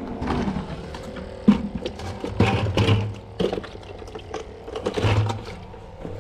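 Handling noise: a plastic bucket knocked and jostled while someone walks over concrete and sandbags, giving a run of irregular knocks, scuffs and rustles.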